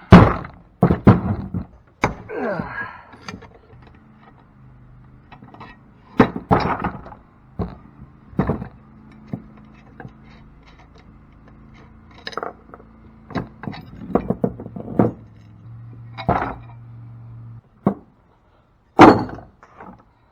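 Irregular knocks and clanks of tools and cast-aluminum pump parts being handled during disassembly, a dozen or so separate sharp hits. A faint low hum runs behind them and cuts off near the end.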